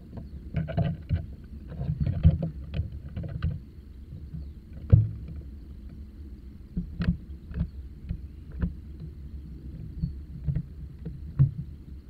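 Irregular knocks and taps, about a dozen clear ones, with low thumps between them over a steady low rumble.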